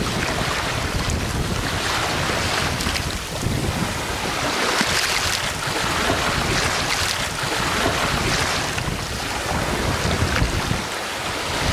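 Wind buffeting the microphone, with waves breaking on a shore; the noise swells and eases.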